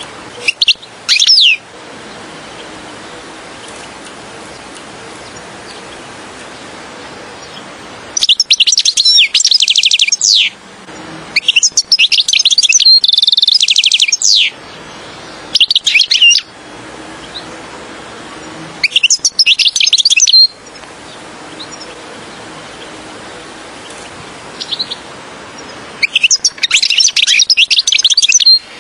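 European goldfinch singing: six bursts of rapid, high twittering song, each lasting about one to three seconds, with pauses between them. The longest bursts come in the middle. A steady faint hiss fills the gaps.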